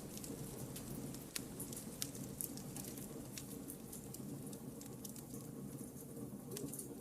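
Wood campfire burning: a low, steady rumble of flames with scattered sharp crackles and pops from the firewood at irregular moments.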